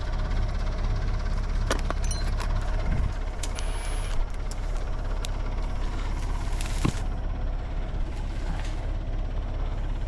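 Backhoe diesel engine running steadily, with a few sharp metallic clicks over it.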